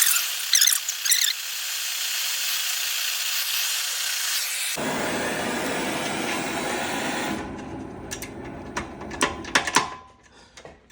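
Torch flame hissing steadily as it heats rusted exhaust bolts, for about the first seven seconds. It then fades, and a string of sharp metallic clicks and knocks follows.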